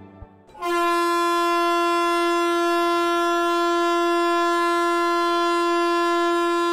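MEMU train's horn sounding one long, unbroken steady blast that starts about half a second in.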